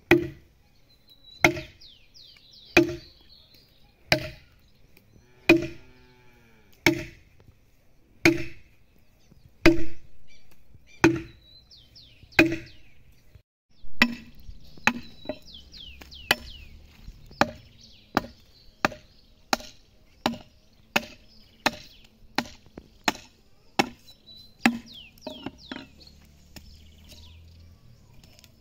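Steel axe blows chopping into a green hardwood log, hewing it by hand. There is one chop about every 1.4 s, then after a break about halfway, quicker chops about every 0.7 s. Birds chirp faintly in the background.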